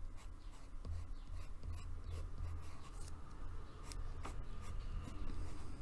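Coloured pencil scratching across paper in short, repeated sketching strokes, over a low rumble underneath.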